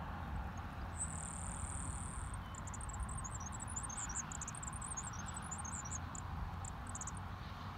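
A very high-pitched insect call: one steady buzzing trill of about a second and a half, then several seconds of short, irregular chirps, over a steady low outdoor background rumble.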